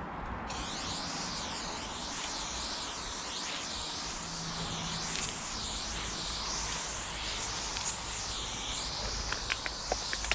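Aerosol spray paint can spraying close against a cinderblock wall: a continuous hiss starting about half a second in, its tone wavering up and down. A few light clicks near the end.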